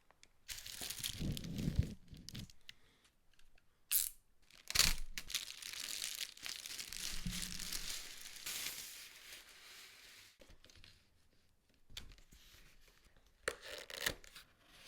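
Packaging being torn open and crinkled while a keyboard kit is unboxed, in irregular stretches of rustling and tearing, with two sharp knocks about four to five seconds in.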